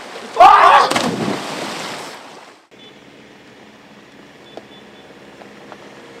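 A swimmer jumping into the sea: a loud splash with a shout that fades over about two seconds. Then, after an abrupt cut, the low steady engine hum of vans driving slowly on a gravel track, with a few faint clicks.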